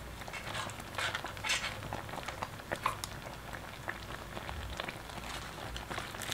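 Thick rice porridge boiling in a stainless steel hot pot, its bubbles popping at irregular intervals.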